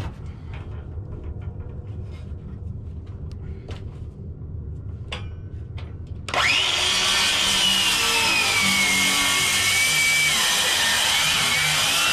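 A power saw starts about six seconds in and cuts into roof shingles and half-inch plywood decking. Its motor whine drops in pitch under load and climbs again near the end. The blade is set too shallow to cut all the way through. Before it there are only faint knocks and shuffling.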